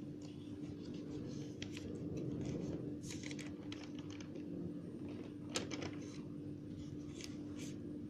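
Scattered light clicks and taps, irregular and in small clusters, with one sharper click a little past the middle, over a steady low hum.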